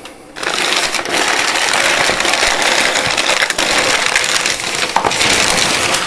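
White packing paper being unwrapped and crumpled by hand: a continuous crinkling rustle that starts about half a second in.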